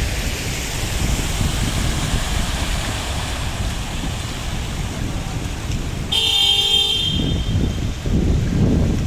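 Steady rain with wind rumbling on the microphone. About six seconds in, a car horn sounds once in a short honk of just under a second.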